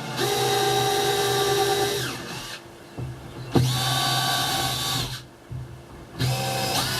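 Electric drill boring a pilot hole into wood, run in three bursts of one to two seconds, each winding down in pitch as the trigger is let off.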